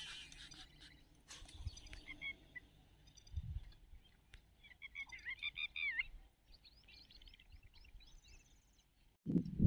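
Birds chirping and calling in short phrases, with a quick run of chirps in the second half.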